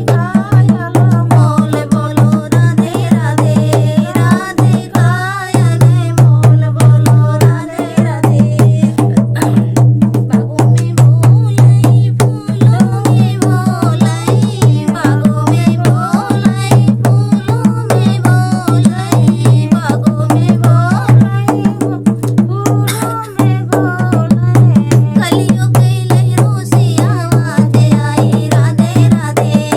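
A Radha-Krishna bhajan sung with steady percussion strokes under a wavering vocal melody, over a constant low hum.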